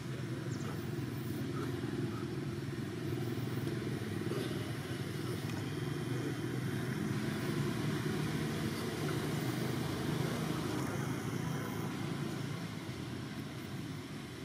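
A motor vehicle's engine running steadily, a low rumble that grows a little louder in the middle and eases off toward the end.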